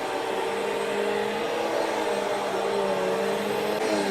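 Bissell CleanView Swivel Pet upright vacuum cleaner running steadily, its motor giving a steady whirring note over a hiss of suction; the motor note shifts slightly near the end.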